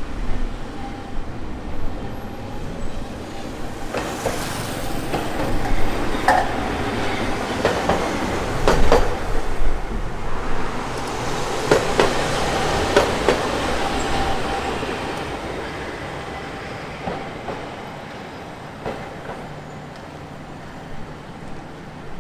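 Hankai Line tram passing over a level crossing. Its running noise builds, peaks about halfway with irregular clacks of the wheels over the rail joints, then fades away.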